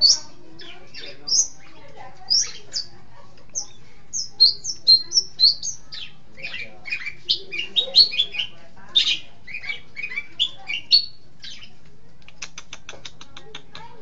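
Long-tailed shrike (cendet) singing: a rapid, varied jumble of sharp chips and short whistled notes, followed near the end by a fast rattle of about a dozen dry clicks.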